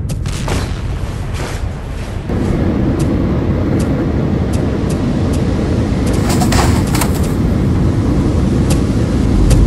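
Action sound effects for an animated fight: a heavy, continuous rumble that gets louder about two seconds in, with a string of sharp bangs and impacts over it.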